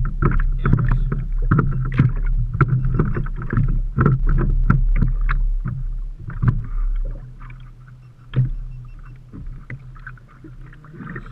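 Small open fishing boat on choppy water: irregular knocks and slaps against the hull over a steady low hum, busy for the first half and thinning out in the second half.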